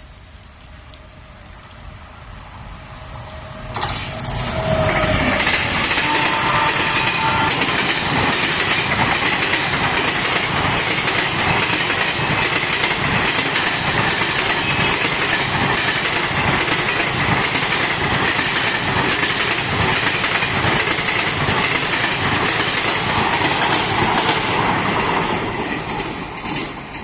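Passenger train passing at speed: a loud rush with a fast, even clickety-clack of wheels over rail joints. It swells sharply about four seconds in as the head of the train reaches the spot, holds steady as the coaches go by, and fades near the end as the train moves away.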